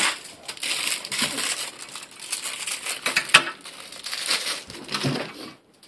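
Clear plastic packaging crinkling as it is handled, a dense run of crackles with a few louder snaps.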